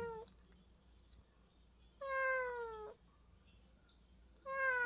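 Domestic cat meowing: the tail end of one meow at the very start, then a full meow about two seconds in and another starting near the end, each about a second long and sliding slightly down in pitch.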